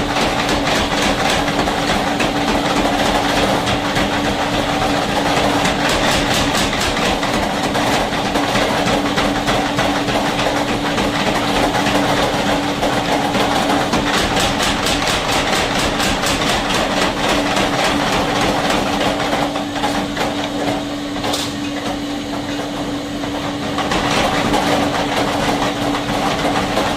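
Blacksmith's forge work: a steady machine hum, with a run of rapid, evenly spaced hammer strikes on iron through the middle stretch.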